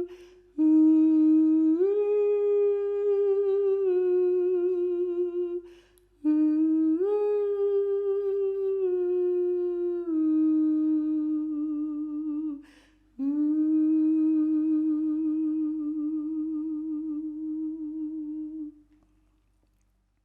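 A solo voice sings wordless, hummed sound-healing tones: long held notes with a wavering vibrato. There are three phrases, each starting with an upward slide in pitch, with audible in-breaths between them. The last phrase fades out near the end.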